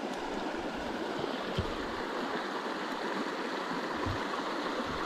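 Small, shallow stream running over a stony riffle: a steady rushing of water.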